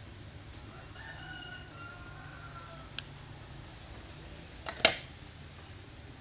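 A faint rooster crow lasting almost two seconds, starting about a second in, followed by a sharp click and then a louder double knock near the end.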